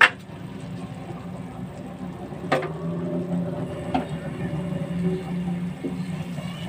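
Whole eggs frying in hot oil in a pan of onion-tomato masala: a steady sizzle, with a sharp knock at the start and two smaller knocks about two and a half and four seconds in as the wooden spatula strikes the pan.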